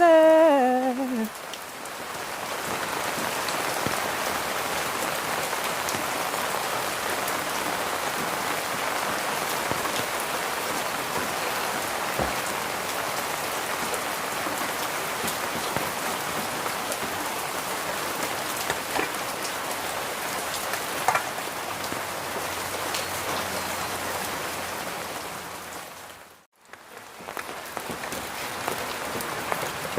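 Steady rain falling and pattering on surfaces, an even hiss throughout that drops out briefly about 26 seconds in.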